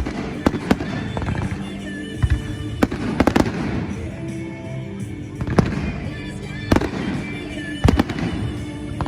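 Fireworks going off in irregular sharp bangs, a dozen or so, over music playing steadily underneath.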